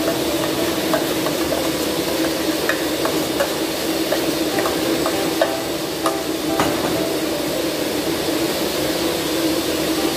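A steady machine hum, with scattered light clinks and knocks of stainless steel pans and utensils against a metal mixing bowl.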